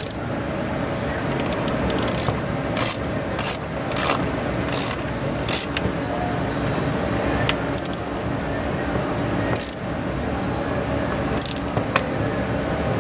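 Hand ratchet wrench clicking as it runs down the throttle body bolts, in a run of short strokes about two-thirds of a second apart, then a few scattered clicks, over a steady background hiss.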